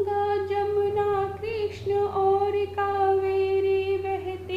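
A high voice singing a patriotic song, holding one long note with slight wavering and short breaks for breath, over a steady low hum.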